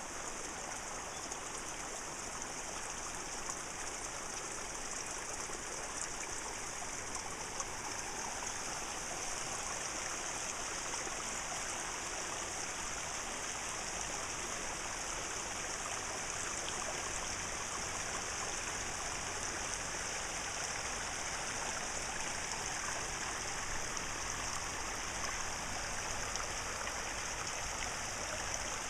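Waterfall water rushing and splashing, a steady, unbroken hiss of falling water.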